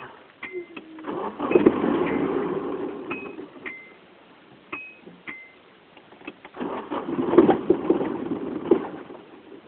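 1991 Nissan 240SX's four-cylinder engine being cranked to start, twice, each attempt lasting about three seconds; the car has been hard to start. A few short high beeps sound between the two attempts.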